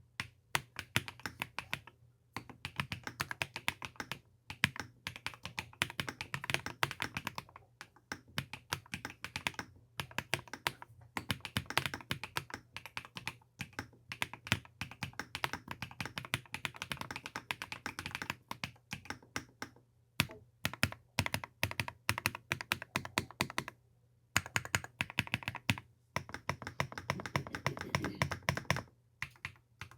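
Typing on an EPOMAKER Split70 split mechanical keyboard, recorded close up: fast runs of clicky, clacky keystrokes with short pauses between bursts.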